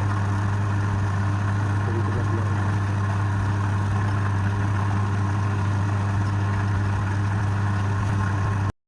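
Wood lathe's electric motor running steadily with a strong low hum and no change in speed; the sound cuts off suddenly near the end.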